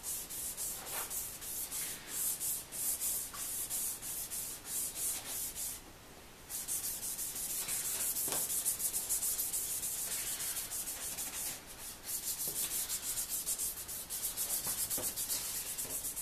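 Wet-sanding a plastic headlight lens by hand with a Rain-X headlight restoration kit sanding pad and lubricant spray: rapid back-and-forth scrubbing strokes, with a brief pause about six seconds in.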